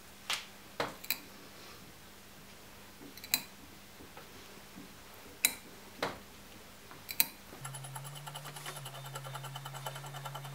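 Hand tap being turned with a bar tap wrench to cut threads in a steel cross slide, with about seven sharp clicks spread over several seconds as the tap cuts and breaks its chips. A bit over halfway through, a steady low hum with a fast fine rattle takes over.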